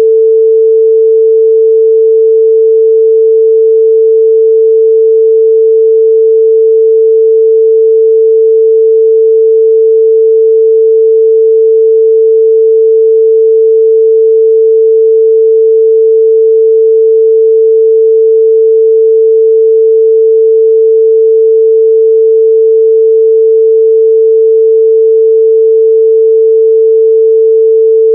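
A pure 445 Hz sine-wave test tone, one steady pitch held at a constant loud level with no change.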